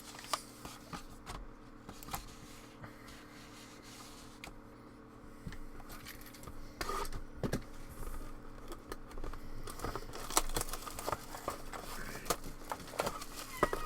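Plastic shrink-wrap crinkling and tearing and cardboard scraping as a sealed box of trading cards is unwrapped and opened, with scattered small clicks and rustles that grow busier in the second half. A steady low hum runs underneath.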